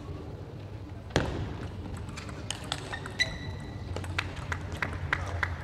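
Table tennis rally: a sharp knock about a second in, then the ball clicking back and forth off the bats and the table, the clicks coming quicker in the second half. A short high squeak sounds midway, over a low steady hum.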